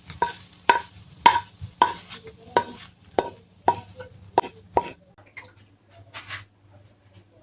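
Spatula scraping and knocking against a frying pan about twice a second, stirring scrambled eggs over a faint sizzle. The strokes stop about five seconds in, leaving a few light clicks.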